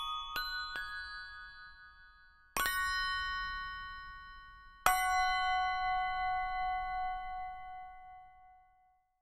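A short musical logo sting of bell-like mallet-percussion notes, glockenspiel-like. A couple of quick notes step upward in pitch in the first second. Then two chords are struck a couple of seconds apart, each ringing on, and the second slowly dies away.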